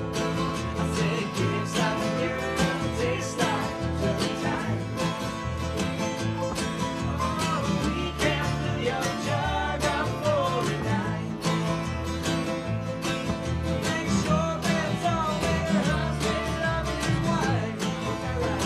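Country-bluegrass string band playing an upbeat tune led by acoustic guitar, with a steady strummed beat.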